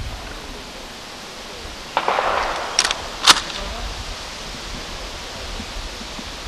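A single sharp rifle shot a little over three seconds in, with a fainter crack just before it.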